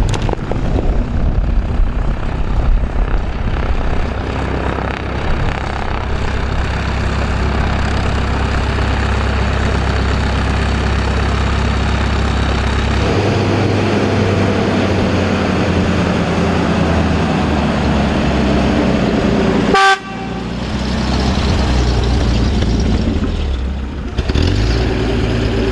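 North American P-51D Mustang's Packard Merlin V12 piston engine running at low power on the ground, a steady drone whose pitch changes about 13 s in, with a brief break about 20 s in.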